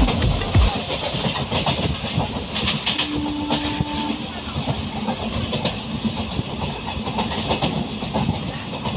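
Passenger train running along the track: a steady rumble with wheels clicking over rail joints. A short steady tone sounds for about a second, three seconds in.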